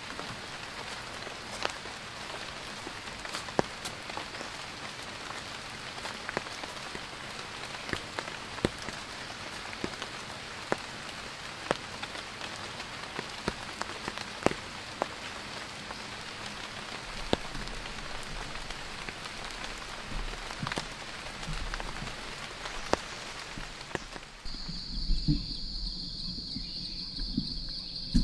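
Steady rain falling on a surface, with individual drops ticking sharply every second or so. Near the end it cuts to a steady, high insect chirring, like crickets.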